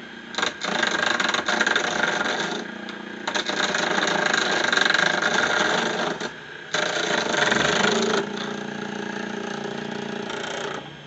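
Wood lathe running with a steady motor hum, broken three times by long spells of loud, rough noise as a turning tool takes the sharp corners off a square Cocobolo pen blank.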